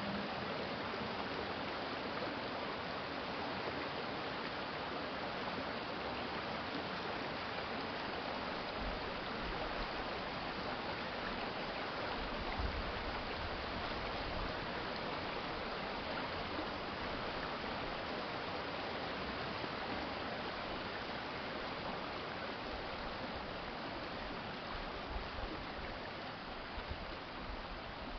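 Water of a city stream flowing, a steady even rush, easing slightly quieter near the end.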